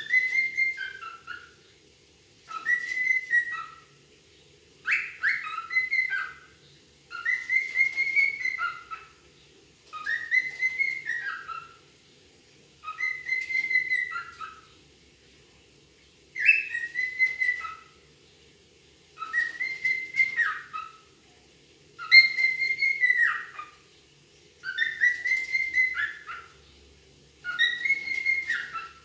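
A grey cockatiel whistling the same short phrase over and over, eleven times, each about two and a half seconds after the last. Each phrase is a quick run of notes that swoops up and then falls away.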